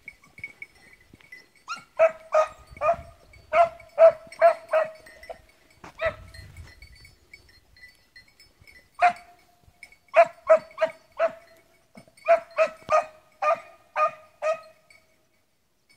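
Swiss hound (Schweizer Laufhund) barking on the hunt: about twenty short, high-pitched barks in bursts of two to five, roughly three a second, with pauses of a second or more between bursts.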